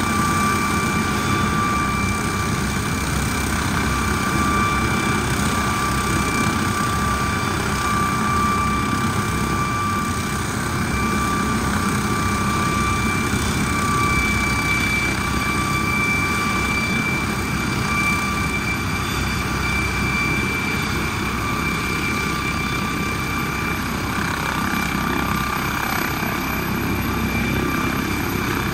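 MD900 Explorer helicopter running, its twin turboshaft engines giving a steady high whine over the rushing noise of the rotor.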